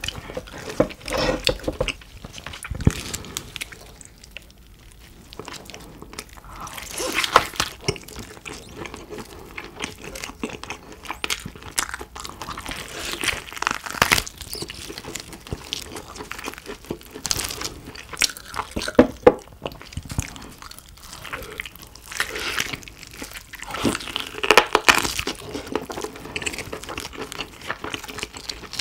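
Close-miked eating: biting into a roast German pork knuckle (Schweinshaxe), its crispy skin crunching, then chewing with irregular crackles and wet mouth sounds, in bursts that come and go.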